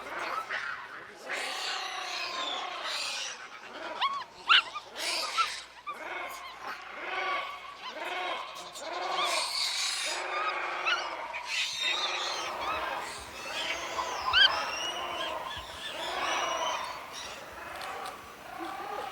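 Monkeys calling: a steady run of short, pitched cries, about two a second, with sharp high squeals mixed in.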